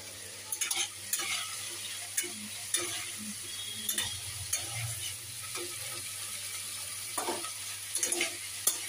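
Chopped cauliflower, carrots, green beans and potato sizzling as they are lightly fried in a pan, with a spatula stirring them and scraping against the pan at irregular moments.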